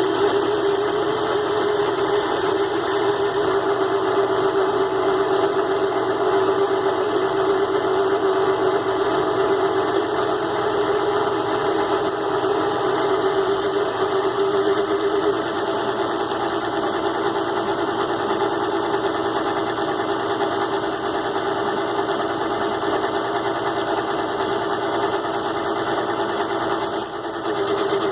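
Mini lathe driven by a small DC motor on a speed controller, running steadily while a grooving tool cuts into aluminium stock; a steady hum that dips briefly about a second before the end.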